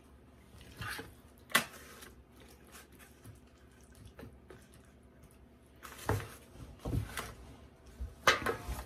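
Scattered soft knocks and wet squishes of a plastic scoop scraping a bowl and dropping a ground-beef-and-rice mixture into aluminium foil pans. A louder clatter of a foil pan being handled comes just after 8 seconds in.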